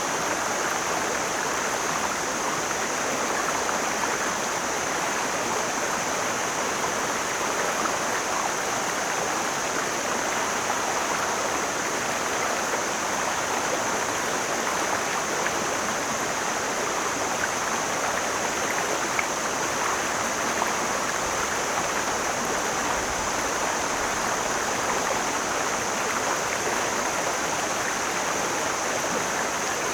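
Mountain stream flowing over rocks: a steady, even rush of water, with a thin high hiss held steady above it.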